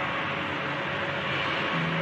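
Transition sound effect: an even rushing noise, with low sustained music notes coming in near the end.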